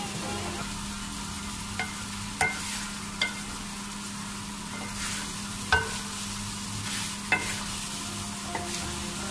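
Mixed vegetables (potatoes, carrots, peas, tomatoes) sizzling as they are stirred and sautéed with no water in a steel pot, a wooden spatula scraping through them and knocking sharply against the pot about six times.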